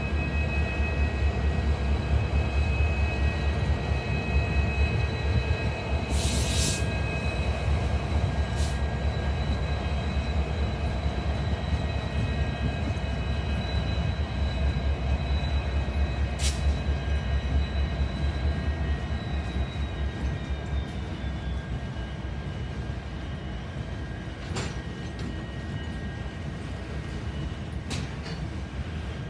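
Diesel freight train passing close by: the trailing EMD SD75I and GE ET44AC locomotives rumble past with a steady high whine, then tank cars and covered hoppers roll by. The whine fades out about two-thirds of the way through, and a few sharp clanks come from the cars.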